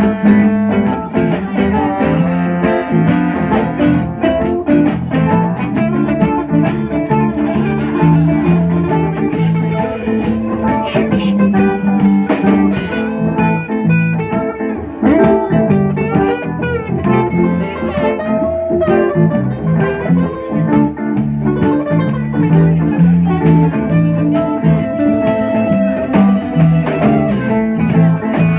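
Live acoustic jam: two acoustic guitars strumming and picking in a steady rhythm, with a trombone playing held notes over them.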